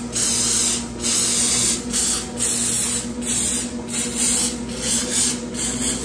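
Aerosol olive oil cooking spray hissing in a series of short bursts, about one every half to one second, lightly misting the tops of breaded catfish pieces.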